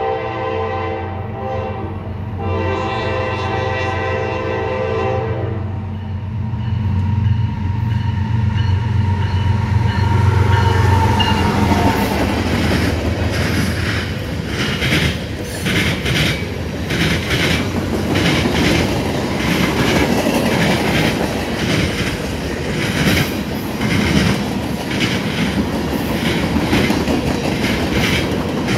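Freight train horn sounding a multi-note chord, broken briefly about two seconds in and stopping about five seconds in. The locomotives then rumble past. From about twelve seconds on, loaded freight cars roll by with a steady clickety-clack of wheels over rail joints.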